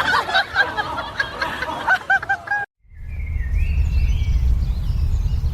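Birds chirping: many short, quick chirps over a noisy background. They stop at a sudden cut, after which a steady low rumble runs with a few faint high calls.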